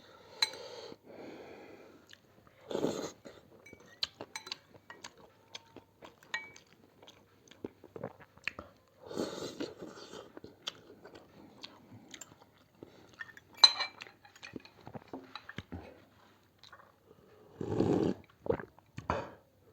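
Close-up chewing of chicken thukpa noodle soup, with irregular sharp clicks and several louder bursts near the end.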